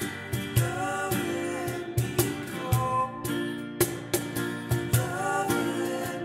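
Live acoustic folk song: a strummed acoustic guitar with voices singing over it, and sharp percussion hits keeping a steady beat.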